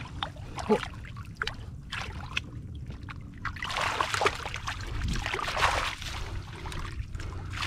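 Water sloshing and trickling in irregular splashes over a steady low rumble.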